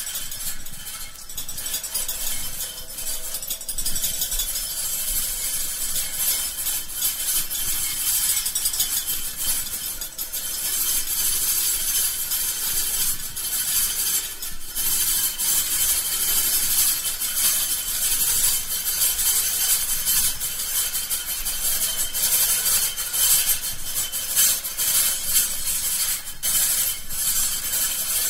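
Continuous scratchy, rasping noise like rubbing and scraping, high-pitched and hissy, with irregular crackles and clicks throughout.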